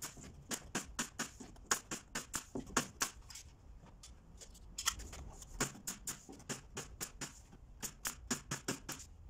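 Pneumatic nailer firing nails in quick succession, about four or five shots a second, fastening a plywood skin onto a hollow-core door frame. The shots come in two runs with a pause of about a second and a half some three seconds in.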